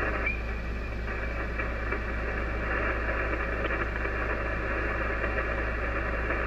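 Icom IC-756PRO HF receiver hissing with 40-metre band static in single-sideband mode, a steady rushing noise with no highs, over a low hum; no station is coming through between transmissions on the net.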